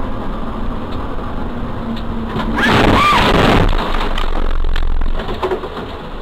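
Car driving in heavy rain, heard from inside the cabin: steady road and rain noise, broken by a loud burst of noise with a short wavering squeal about three seconds in, followed by a low rumble for about a second.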